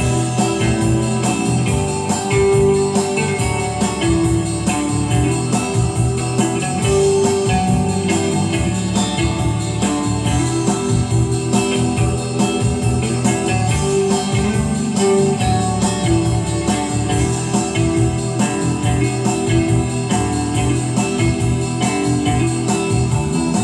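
Instrumental music with a steady beat, with no voice.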